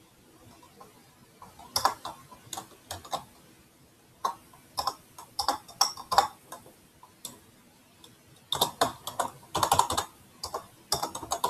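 Typing on a computer keyboard: quick runs of keystroke clicks, starting about two seconds in, broken by short pauses.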